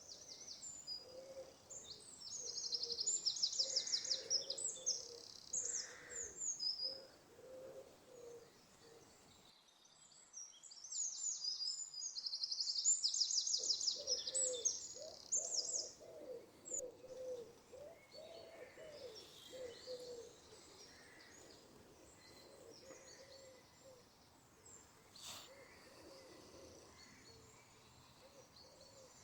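Birds singing: rapid high trills, loudest in two runs (a few seconds in and again around the middle), with quieter chirps and lower repeated cooing calls underneath.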